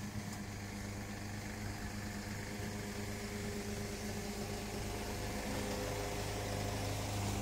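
A steady low mechanical hum with several steady tones above it, growing slightly louder toward the end.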